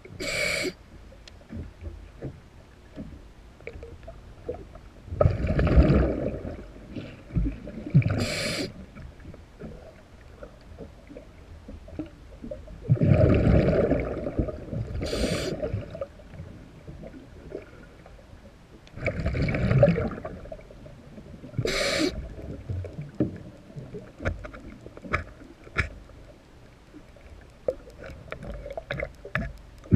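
Scuba diver breathing through a regulator, heard underwater: each inhale is a short, sharp hiss and each exhale a longer, louder rumble of bubbles, about four breaths in all. Faint scattered ticks in between.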